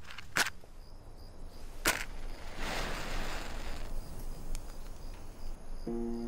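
Film sound effects: two sharp hits about a second and a half apart, then a whoosh and a small click. Music with held notes comes in near the end.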